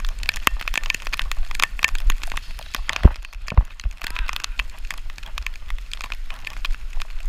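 Dense, irregular crackling and clicking over a steady low rumble, from a camera carried along on a moving bicycle, with two heavy thumps about three seconds in.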